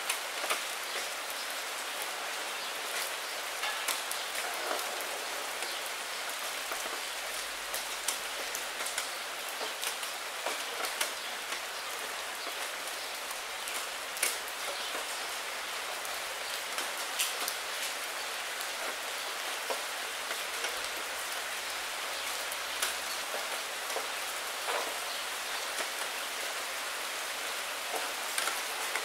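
Steady rain against a window pane: an even hiss with many scattered sharp ticks of individual drops striking the glass.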